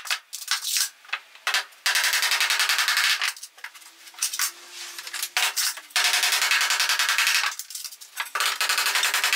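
Three bursts of rapid rattling impacts, each about a second and a half long, with a few single knocks between them: fasteners being driven into pallet boards.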